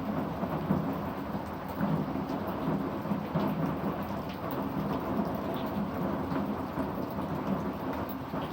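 Heavy rain falling steadily, a dense even hiss with scattered sharper ticks of drops hitting nearby surfaces.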